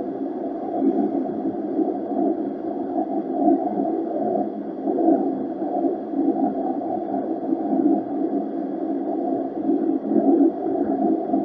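LSWR O2 class 0-4-4 tank steam locomotive on the move, heard as a muffled, steady rumble through a camera mounted on its side tank.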